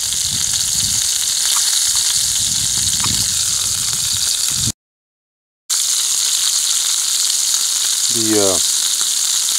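Wild hog bacon sizzling steadily as it fries in a skillet. The sizzle cuts out completely for about a second midway, and a short rising voice sound comes near the end.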